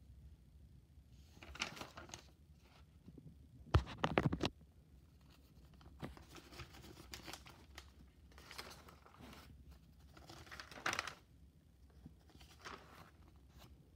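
Pages of a spiral-bound paper notebook being turned and handled, rustling and sliding in several separate strokes, with a knock just before four seconds in.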